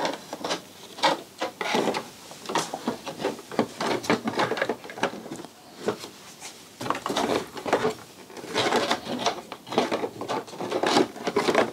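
Plastic nose-section fairing of a BMW R1250GS being worked into place by hand: irregular scraping, rubbing and clicking of the panel against the bike's bodywork, busiest in the second half.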